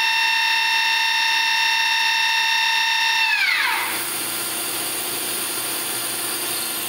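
Live tool spindles on the back working station of a Tsugami BO326II CNC Swiss-type lathe running at speed with a steady high whine. About three and a half seconds in the whine falls as they spin down. A quieter steady machine hum and hiss carry on afterwards.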